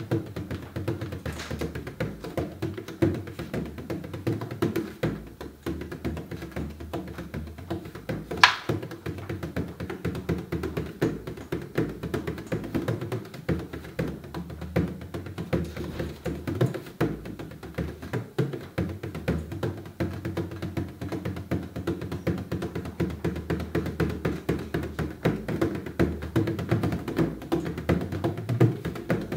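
Bodhrán beaten with a tipper in a fast, steady stream of strokes, an instrumental break in an Irish song, with one sharp louder click about eight and a half seconds in.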